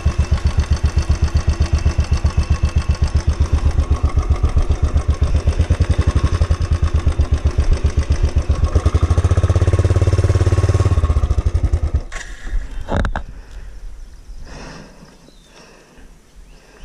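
Royal Enfield Bullet 350's single-cylinder engine running with a slow, even thump. It gets louder on more throttle for a couple of seconds, then stops abruptly. A single sharp knock follows about a second later, then only faint scuffing.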